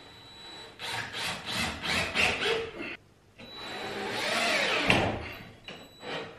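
Cordless drill driving drywall screws through a ceiling panel into the wooden joists. There are two runs of a couple of seconds each, the motor's pitch rising and falling in the second, then a short burst near the end.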